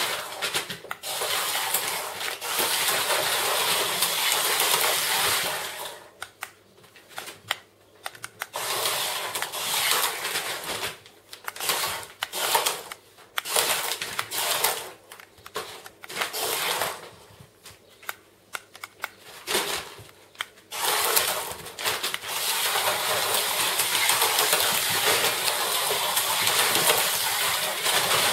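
Kittens scrambling through a heap of packing paper, the paper crinkling and rustling. The rustling runs continuously at first, breaks into short spurts with quiet gaps from about six seconds in, and turns continuous again past twenty seconds.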